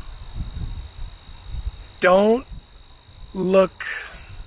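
Insects trilling steadily with a thin, high, unbroken tone, over a low wind rumble on the microphone. A man makes two short voiced sounds, about two and three and a half seconds in.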